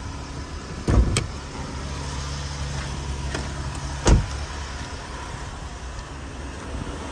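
2017 Jeep Grand Cherokee's engine idling steadily. There is a pair of sharp knocks about a second in, and a single heavy thump just after four seconds as a car door is shut.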